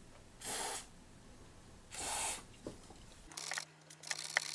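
Two short hissing squirts of contact cleaner from an aerosol can, sprayed onto dirty switch contacts to clean them. Near the end come a few clicks and rustles as the metal chassis is handled.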